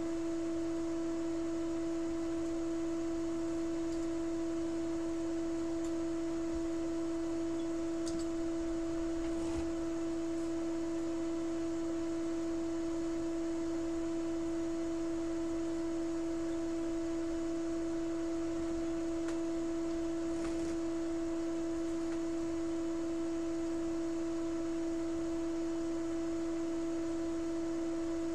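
A steady pure tone held at one pitch, with a fainter tone an octave above it.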